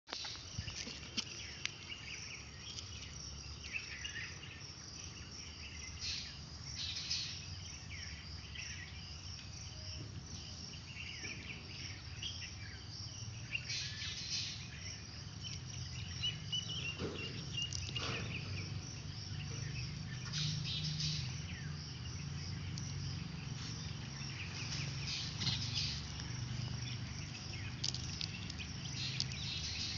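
Steady high insect buzzing, with louder bursts of high chirping every few seconds.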